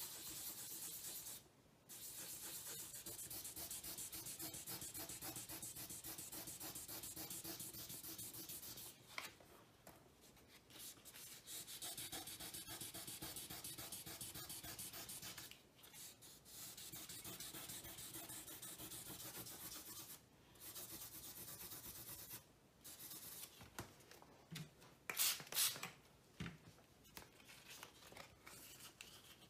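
Sandpaper held under a fingertip rubbed back and forth in quick strokes over the enamel of an appliance door, levelling touch-up paint over scratches. It comes in spells of several seconds with short pauses, and a few sharper knocks sound near the end.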